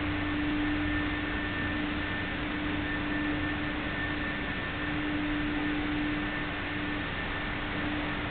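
Steady hiss with a low hum and a faint steady tone, with no distinct events.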